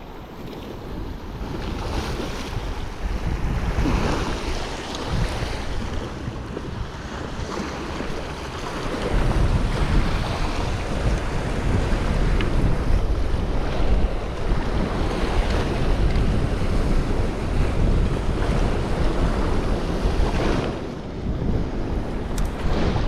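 Wind buffeting the microphone over the wash of sea waves, the rumble growing stronger about nine seconds in and easing near the end.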